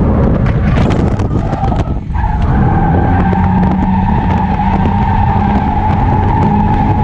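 Subaru BRZ's flat-four engine running hard, heard from inside the cabin as the car drifts. About two seconds in the engine note drops briefly, then a steady high tyre squeal sets in and holds as the car slides sideways.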